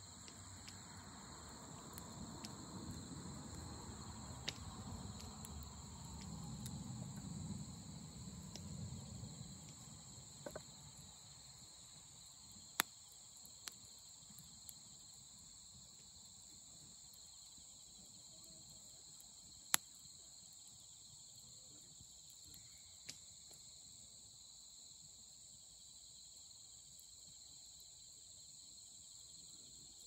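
Campfire at night: a steady chorus of singing insects, with sharp pops of burning firewood now and then, the loudest about thirteen and twenty seconds in. A low rushing sound rises and fades over the first ten seconds.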